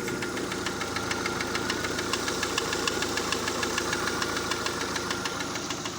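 Citroën C3 engine idling with a rapid, even knocking tick in time with the engine's rotation, like valve tapping, spread through the whole engine. The owner suspects a badly slack oil-pump drive chain.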